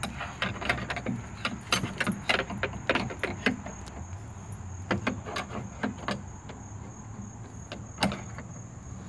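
Metal clinks and wooden knocks from a round metal rod being worked into a hole in a wooden ramp board: a quick scatter of sharp taps at first, then a few spaced knocks.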